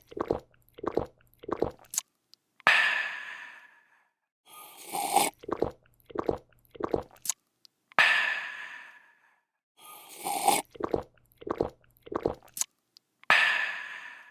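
A person slurping a drink, swallowing it in three or four quick gulps, then letting out a long breathy 'aah' of refreshment that fades away. The sip, gulps and sigh repeat about three times.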